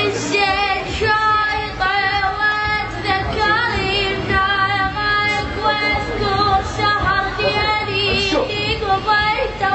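A high-pitched voice singing a drawn-out, ornamented melody with strong vibrato, over a steady low accompaniment.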